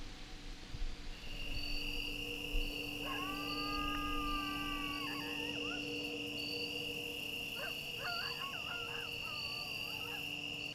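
Dusk woodland ambience: a steady high insect trill with a pulsing higher chirp beneath it. About three seconds in comes one long, level howl-like animal call that bends down at its end, and a second and a half of shorter wavering calls follows near the end.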